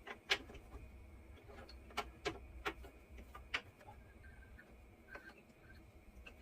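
Faint, scattered sharp clicks and knocks of a water tap head being worked loose and handled as it is unscrewed from the pipe, about five or six in a few seconds.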